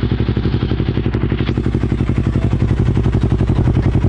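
Yamaha R3's 321 cc parallel-twin engine idling steadily through a Yoshimura R77 carbon full-system exhaust, with an even, pulsing exhaust beat.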